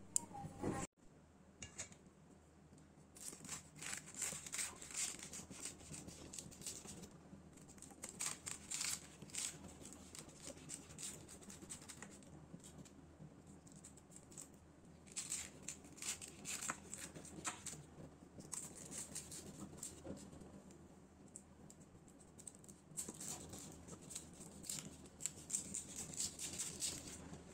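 Knife cutting through the crisp, flaky phyllo layers of a baked baklava: crackling and crunching of brittle pastry in bursts of a few seconds, with short pauses between strokes.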